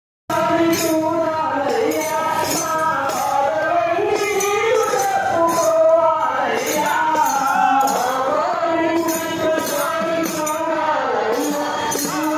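A group of men singing a devotional song together, with tambourines beaten and jingling to a steady beat. It starts abruptly just after the beginning.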